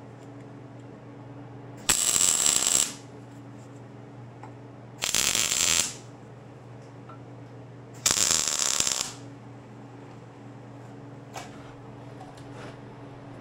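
MIG welder laying three short tack welds on steel, each weld a loud burst of about a second, roughly three seconds apart. A steady low hum runs between them, with a few light clicks near the end.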